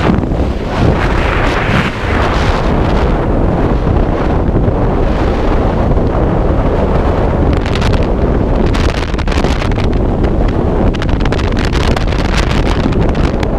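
Loud, steady freefall wind rushing over and buffeting a head-mounted camera's microphone, with brief gusty flares a few seconds before the end.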